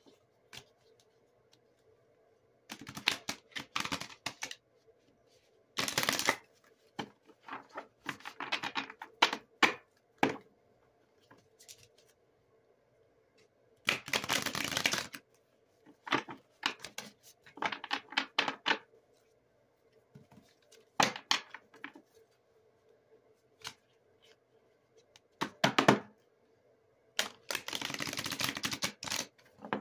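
A deck of oracle cards being shuffled by hand: bursts of rapid flicking and clicking as the cards slide and drop between the hands, about eight bursts with short pauses between, the last one near the end the longest.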